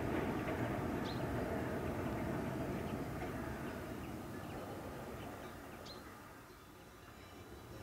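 Distant freight train hauled by an MLW MX627 diesel locomotive running across a steel trestle viaduct, its rumble fading away over several seconds. A couple of short bird chirps, about a second in and near the end.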